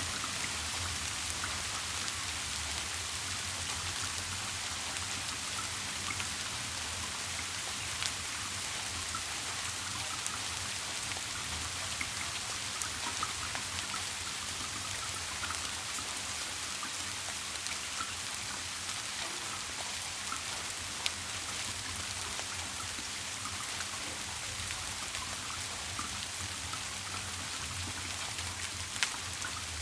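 Steady rain falling on a surface, an even patter with single sharper drop ticks now and then, over a faint low steady hum.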